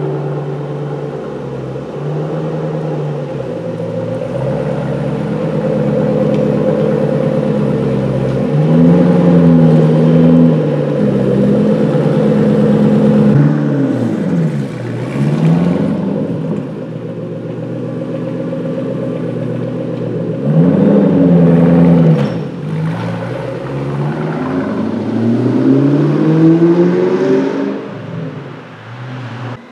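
Ford Shelby GT500's supercharged 5.4-litre V8, breathing through a JLT cold air intake, running and being revved several times, the engine pitch rising and falling with each rev. Near the end the car pulls away and the sound fades.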